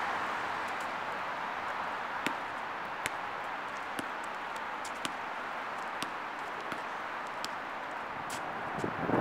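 Steady outdoor urban background noise, like distant traffic, with faint sharp ticks about once a second.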